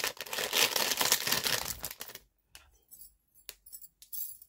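A plastic packaging bag crinkling as it is handled for about two seconds, then a few light metallic clinks from thin bangle bracelets.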